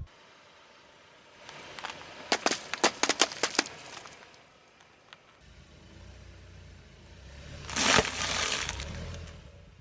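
Car tyre rolling over crunchy objects: a quick run of sharp cracks and snaps, then the low rumble of the car rolling on and a single loud crunch about eight seconds in.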